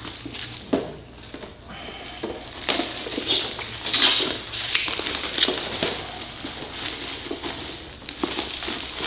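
Plastic shrink wrap being torn and peeled off a cardboard box, crinkling and crackling in irregular bursts, loudest around the middle.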